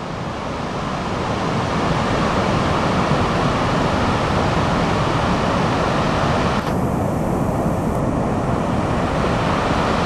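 Glacier-fed river rushing over rapids and a waterfall: a steady, even rush of water. About seven seconds in the higher hiss dulls abruptly.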